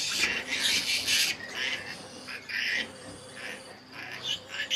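Newborn piglets squealing in short, high-pitched bursts, again and again at irregular intervals, over a faint steady hum.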